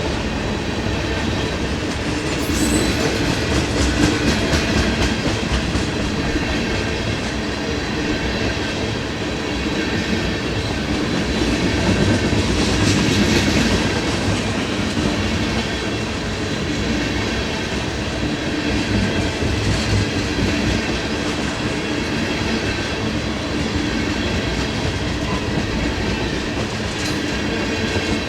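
Freight train of empty tank cars rolling past close by: a steady rumble of wheels on rail, with thin steady high tones and some clicking over rail joints.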